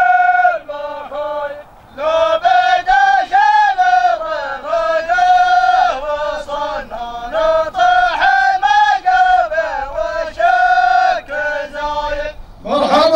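A male voice chants a Gulf Arabic shaila, a sung welcome poem: a melodic line of held notes that slide between pitches, with a short break about two seconds in.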